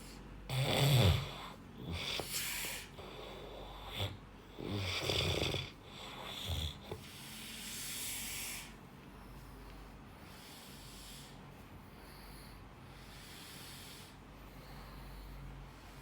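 Snoring: about four loud snores in the first nine seconds or so, each a low rough rumble with a breathy hiss, then only soft, quiet breathing.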